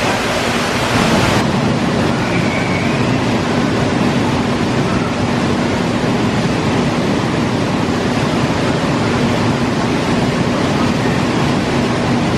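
A waterfall: a steady rush of falling, splashing water.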